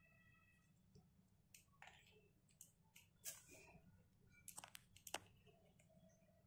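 Near silence: room tone with a few faint clicks, clustered about four and a half to five seconds in.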